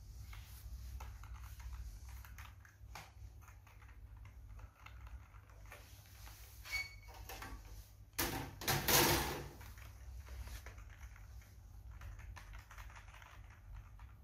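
Scattered clicks and taps of hands working at a desktop PC and its keyboard, with a louder rustling clatter lasting about a second, a little past the middle, over a steady low hum.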